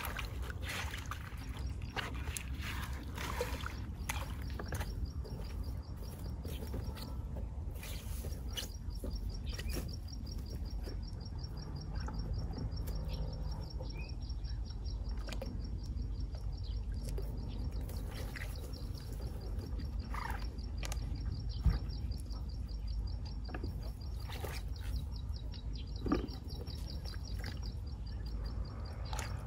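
Outdoor pond-side ambience: a steady, fast-pulsing high trill runs through most of it over a low rumble, with scattered small splashes and rustles.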